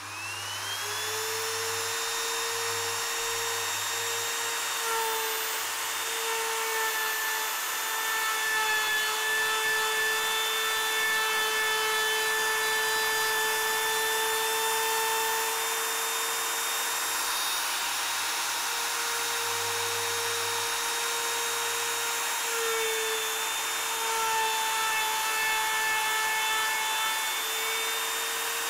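An electric power tool's motor spins up and then runs at a steady pitch, working on a wooden post.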